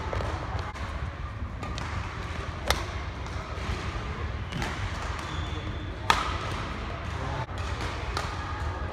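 Badminton racket strikes on a shuttlecock during a rally: sharp hits at about two and a half and six seconds in, the later one the loudest, with a few fainter clicks between, over the steady hum of a large hall and a murmur of voices.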